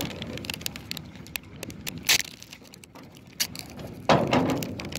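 Scattered wooden knocks and clicks from a wooden boat being worked with a long pole: the pole knocking and footsteps on the plank deck. There is a louder knock about two seconds in and a heavier thud a little past four seconds.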